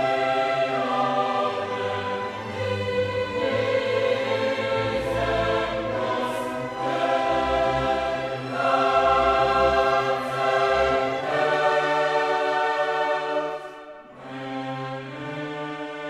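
Background classical music: sustained chords held and changing every second or two, dropping quieter about 14 seconds in.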